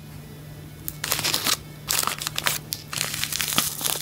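Clear plastic bag of nail glitter mix being handled, crinkling in irregular bursts.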